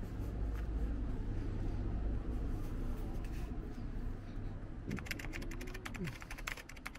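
Outdoor street ambience picked up by a handheld camera while walking: a steady low rumble, and a quick run of sharp clicks about five seconds in.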